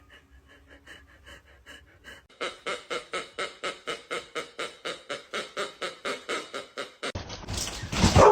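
Fast rhythmic panting, about three to four breaths a second, faint at first and louder from about two seconds in, with a louder noisy sound near the end.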